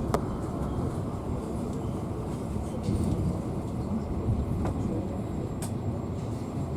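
Passenger train running, heard from inside the carriage: a steady rumble of wheels on the rails with a few sharp clicks and knocks scattered through it.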